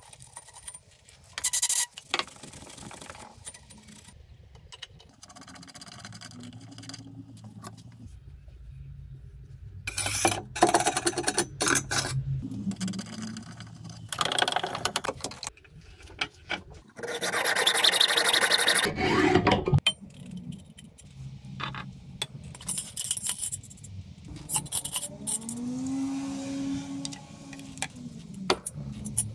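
Rasping, rubbing hand-tool strokes on a square steel tube clamped in a bench vise, coming in several separate spells, the longest and loudest lasting about two and a half seconds.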